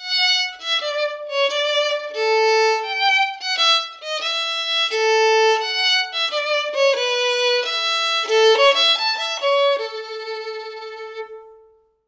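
Solo violin bowed in a clean modern recording, playing a melody of short and longer held notes and ending on a long held note that fades away.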